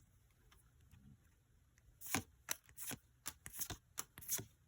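Yu-Gi-Oh trading cards being handled and flicked through by hand. After about two seconds of quiet comes a quick, irregular run of short, crisp card snaps and slides.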